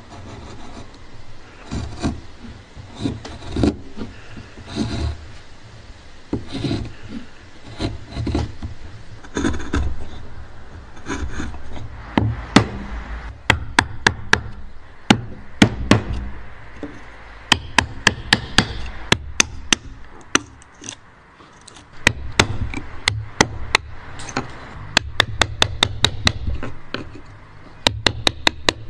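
Hand woodworking with a chisel: wood rubbing and scraping in uneven strokes, then from about halfway runs of sharp knocks, about four a second, as the chisel cuts into a pencil-marked board.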